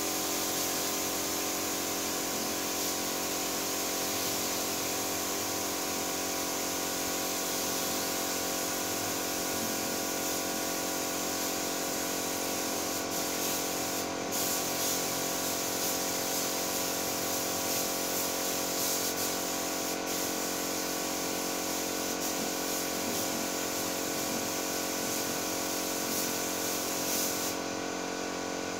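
Paint spray gun hissing steadily as paint is sprayed, over a steady machine hum. The hiss breaks off briefly about halfway and thins near the end.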